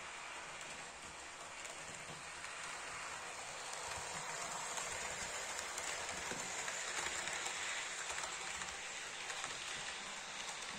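HO-scale model train, a Mehano 2-8-0 Consolidation steam locomotive with passenger cars, running along the layout track: a steady rolling rattle of wheels on rail that grows louder as the train passes close, then eases off near the end.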